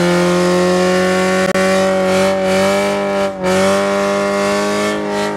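Miata kart's four-cylinder engine held at high, steady revs during a line-lock burnout, the rear tyres spinning and smoking, with a short dip in revs about three seconds in.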